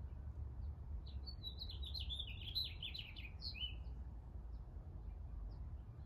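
A small songbird singing one rapid twittering phrase of quick high notes lasting about two and a half seconds and ending on a short downward slur, with scattered single chirps before and after, over a low steady rumble.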